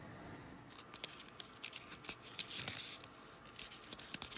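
Cardboard door of an advent calendar being pried open by hand: faint paper crinkling and rubbing, with a string of small sharp clicks and scrapes.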